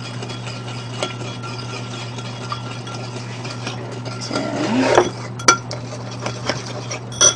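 Metal spoon stirring a liquid vinegar-and-mustard dressing in a small ceramic bowl, scraping and clinking against the sides. A few sharper clinks come in the second half.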